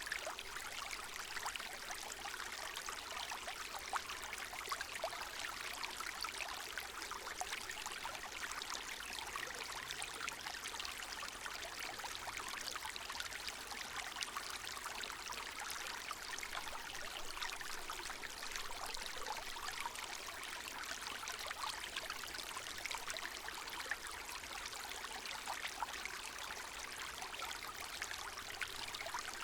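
Small meandering woodland stream trickling and babbling steadily over stones, a continuous water rush dotted with fine splashes and drips.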